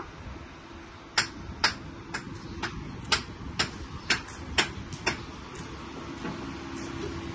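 Hammer tapping on the building site: about a dozen sharp knocks, roughly two a second, for about four seconds, over steady outdoor background noise.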